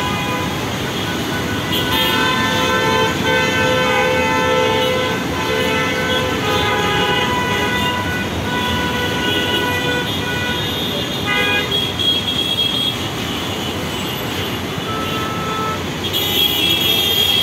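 Congested city road traffic: many vehicle horns honking over one another above a steady bed of engine and road noise from buses, cars and auto-rickshaws. The honking is densest over the first half, thins out, then gathers again near the end.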